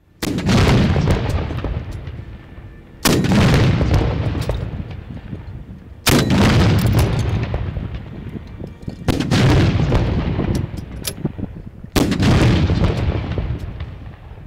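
A battery of towed howitzers firing a ceremonial gun salute: five shots about three seconds apart, each followed by a long fading rumble.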